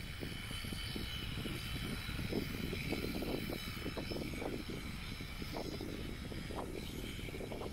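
Electric shearing handpiece running steadily, its motor whining as the comb and cutter clip through alpaca fleece.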